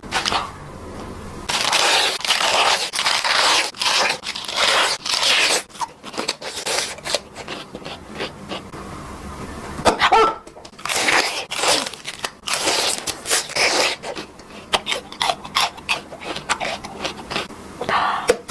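Close-up crunching and chewing of crisp food, in a rapid, irregular run of loud bites and chews with a short pause about halfway through.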